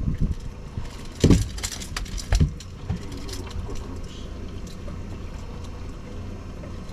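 Two sharp knocks and a short clatter on a boat about a second in, over a steady low rumble of the boat and wind; faint voices follow.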